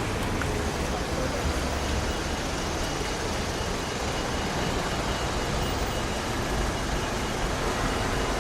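Steady noise of a river tour boat under way: a low engine rumble under an even rush of water and air, with a faint thin whine from about two seconds in.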